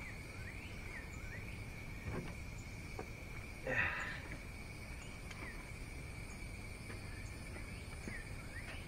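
Steady high-pitched drone of insects, a cricket chorus, with small chirps repeating over it. A brief noise about four seconds in.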